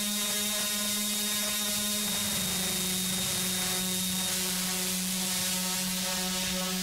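Harsh noise music: a dense wall of hiss and static over a steady low drone. The texture shifts about two seconds in, and a thin high whistle cuts out about four seconds in.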